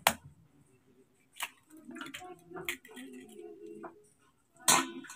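Eggs being cracked against a metal bowl and dropped in: a sharp crack right at the start, a softer tap about a second and a half in, and another sharp crack near the end.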